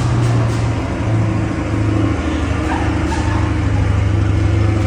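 Sports car's V8 engine running loudly at a steady fast idle, its pitch dipping briefly about two seconds in.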